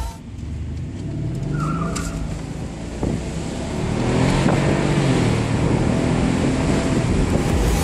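Mercedes SL engine heard from inside the cabin while the car accelerates: its pitch rises, breaks off about three seconds in, then climbs again, with road and wind noise building.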